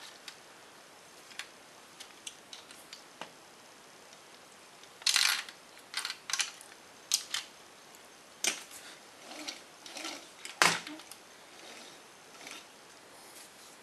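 A plastic Lego brick-built toy car being handled by hand: scattered clicks, taps and light rattles of the bricks, in small clusters, with one sharper knock about two-thirds of the way through. Near the end the car is pushed along a laminate floor.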